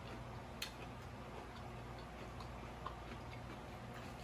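Close-miked chewing of a ranch-seasoned cucumber slice with the mouth closed: soft, irregular wet mouth clicks, the clearest about half a second and three seconds in, over a low steady hum.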